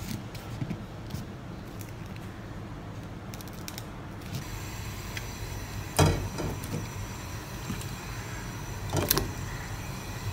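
Kitchen knife slicing kernels off a corn cob on a plastic cutting board, with light clicks and scrapes, over a steady low hum. About six seconds in comes a loud knock, and a smaller one about three seconds later.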